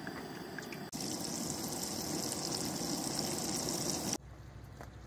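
Breaded trout fillets sizzling in hot oil in a cast-iron skillet. The frying is louder from about a second in and cuts off abruptly about four seconds in.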